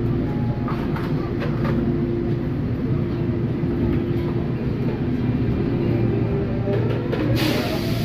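Seoul Subway Line 8 train heard from inside the car, standing at a station with a steady hum from its onboard equipment. Near the end it starts to pull away, with a rising motor whine and a rush of noise.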